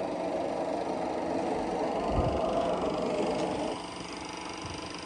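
Soundtrack of a Super 8 film played through the projector: a steady mechanical rumble like a ship's interior ambience, which falls away a little before four seconds in, over a faint steady hum that runs throughout.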